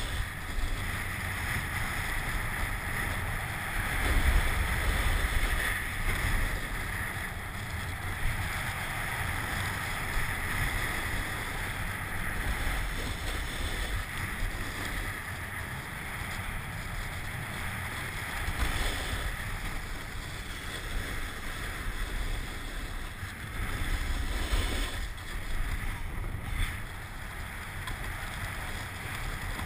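Snowboard sliding and carving down a groomed slope, its base and edges hissing and scraping on the snow, with wind rumbling on the camera's microphone; the scraping swells louder a few times as the board turns.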